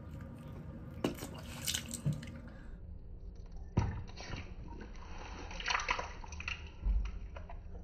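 Wet sucking and slurping mouth sounds with scattered small clicks, as a soft gel-skinned blob of Gatorade is bitten into and its liquid sucked out and dribbled.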